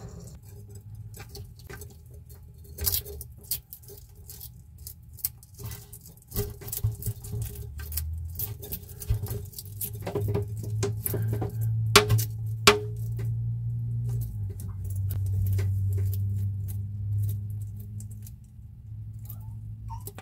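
A bearded dragon crunching a cockroach: irregular crisp clicks and crackles of the insect's shell breaking in its jaws, thickest in the middle, with two sharp cracks about twelve seconds in. A low hum runs underneath.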